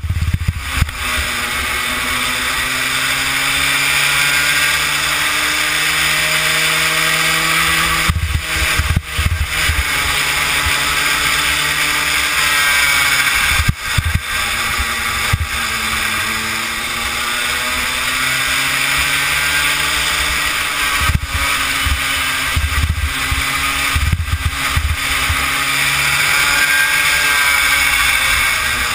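Kid kart's small single-cylinder engine running hard through a lap, its pitch rising slowly on the straights and falling back into the corners, with a few brief drops in level. A low wind rumble buffets the onboard microphone.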